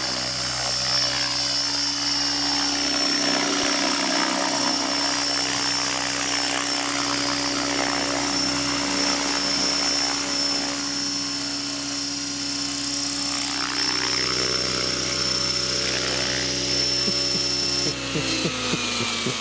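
Align T-Rex 600 radio-controlled helicopter running with a steady whine from its rotor and drive, through flight and a landing on grass. Near the end the highest whine cuts off and the pitch falls as the rotor spins down.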